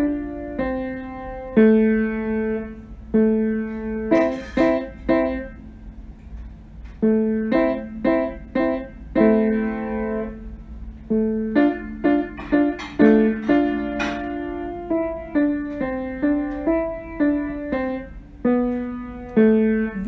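Background piano music: a slow tune of single struck notes and chords, each note fading away after it is played.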